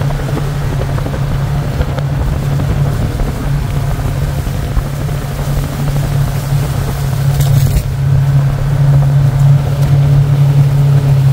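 Vehicle engine running steadily under way on a rough dirt road, a constant low drone that grows a little louder in the second half. A brief hiss about seven and a half seconds in.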